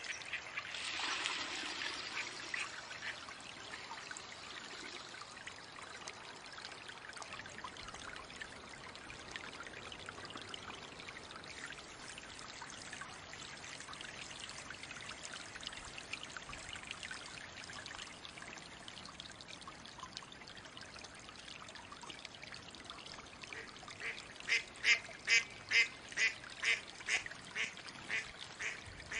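Steady trickling and splashing of water, briefly louder about a second in. Near the end a mallard hen gives a fast series of about ten loud quacks, roughly two a second, fading as the series goes on: the descending decrescendo call.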